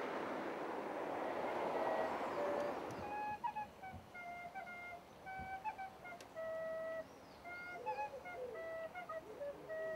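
Traffic noise from a car passing on the road, fading over the first three seconds, as a slow solo melody on a wind instrument comes in. From about three seconds on, the melody of held notes and short runs carries on as background music, with faint bird chirps behind it.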